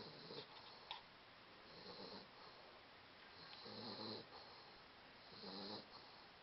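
A sleeping puppy snoring softly, four short snores at a slow, even pace about two seconds apart.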